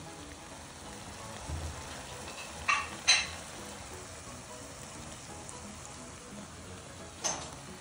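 Baby octopus (jjukkumi) sizzling steadily in a hot pan, with a few short clicks, likely utensils against the pan, about three seconds in and again near the end.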